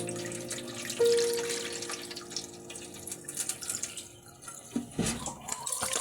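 Water trickling and dripping, with small splashes and ticks throughout. A single plucked acoustic guitar note sounds about a second in and fades away.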